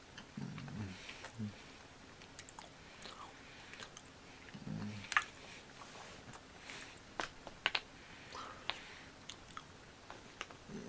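A person chewing and biting into a Kit Kat Cookies and Cream chocolate wafer bar at close range, with irregular sharp crunches, and a couple of short low hums from the eater.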